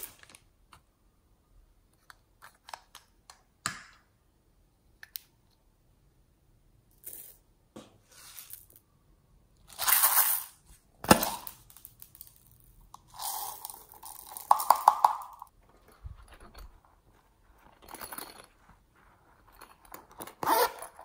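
Close-up handling noises of slime supplies, coming and going with quiet gaps: crinkling plastic packaging, small plastic pieces dropping, and scattered taps and rustles. A zipper is pulled open on a fabric pouch near the end.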